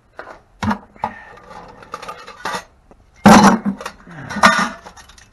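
Metal scrap clattering and clinking as it is handled in a bucket: a series of knocks and rattles, loudest about three seconds in and again a second later.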